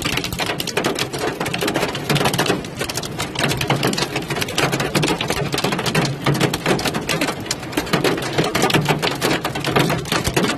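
Hailstones drumming on a car's roof and windscreen, heard from inside the car as a dense, rapid clatter of hits that keeps up at an even level.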